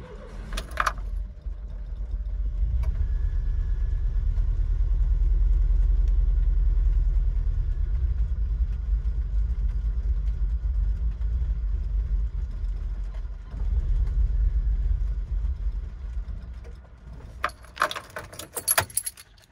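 A Volkswagen Vanagon's engine running with a steady low rumble. It swells over the first few seconds, dips briefly about thirteen seconds in, and dies away about seventeen seconds in. Keys jangle at the start and again near the end.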